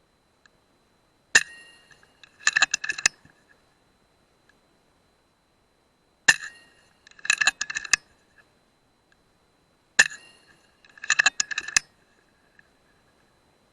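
A .177 PCP air rifle fires three times, about four seconds apart. Each shot is a sharp crack with a brief metallic ring. About a second after each shot comes a quick run of metallic clicks and clinks. A faint, steady high whine runs underneath.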